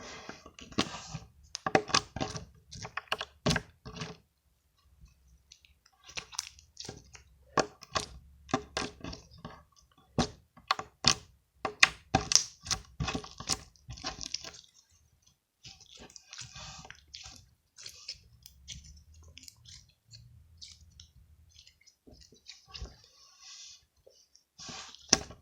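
Glitter slime being squished and worked by hand, giving irregular sticky clicks and pops. The clicking is dense at first, stops briefly about four seconds in, and grows sparser and fainter in the last third.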